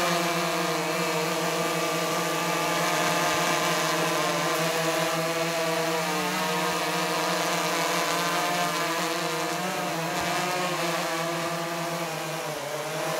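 Vehicle engine running at a steady speed, its pitch wavering slightly and easing off a little near the end.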